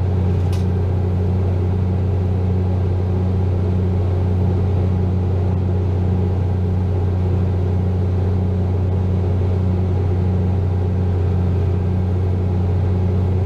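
Ford 7840 tractor's diesel engine running at a steady speed, heard from inside the cab as a constant low drone while it drives a hay chopper. A single click about half a second in.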